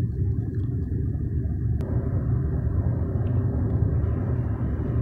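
Steady low rumble of road and engine noise heard from inside a moving car's cabin, with a small click about two seconds in.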